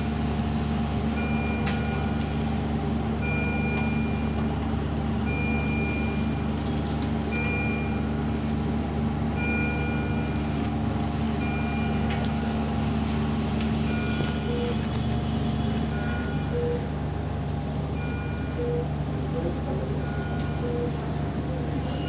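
ICU medical equipment alarm giving short two-tone beeps about every two seconds over a steady hum of running machines. A second series of lower beeps joins in from about two-thirds of the way through.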